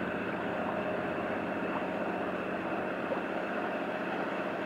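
Steady engine drone of a passing river passenger ship, a constant hum over an even hiss.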